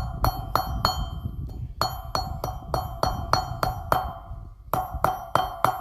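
Hammer striking a piece of annealed steel on a hard surface to flatten it: a steady run of blows, about three a second, each with a bright metallic ring. Two short pauses break the run, one about a second and a half in and one near the end.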